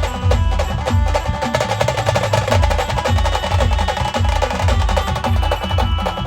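Band music for dancing: fast, dense drumming over a heavy, repeating bass-drum beat, with a melody line held above it.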